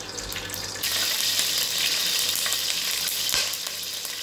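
Whole spices, bay leaves among them, sizzling in hot coconut oil in a stainless steel pot. The sizzle jumps up sharply about a second in, as the spices hit the oil, and then holds steady.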